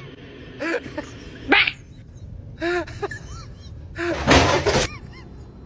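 Several short cat meows, each rising and falling in pitch, with a loud burst of noise about four seconds in.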